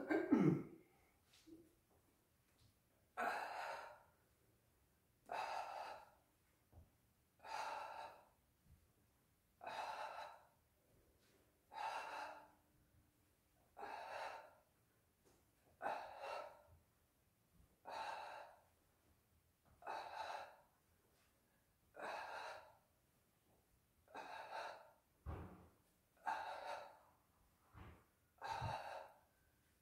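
A man's paced, rhythmic breathing, one breath about every two seconds and each lasting about a second. There is a dull thump at the very start and two more near the end.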